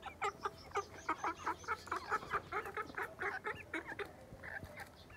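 Young Aseel chickens clucking as they feed: a steady run of short calls, about four a second.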